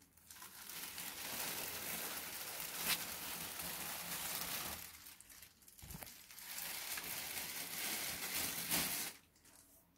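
Thin clear plastic bag crinkling and rustling as it is pulled up off a potted plant. The sound comes in two stretches, about four seconds and then about two and a half seconds, with a short pause between.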